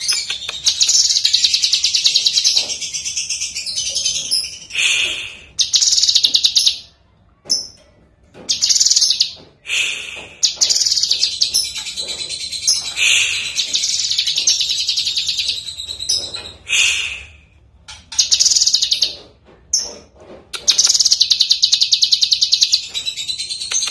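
Cucak kinoi (blue-masked leafbird) singing loudly and energetically: fast, high chattering trills in phrases of one to three seconds, broken by short pauses, with a long unbroken phrase near the end.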